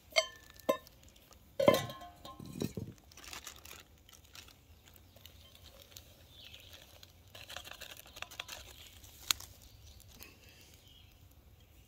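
Metal camp cup clinking and ringing a few times as it is handled and set down, followed by water poured from a bottle into the cup, and one sharp click about nine seconds in.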